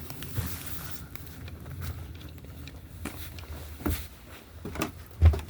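Footsteps and a few scattered knocks on a floor over faint room hiss, the loudest a heavy low thump near the end.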